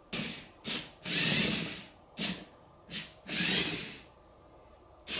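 Leoking remote-control robot dog toy making a string of short hissing, whirring bursts during its crawl mode, two of them lasting close to a second.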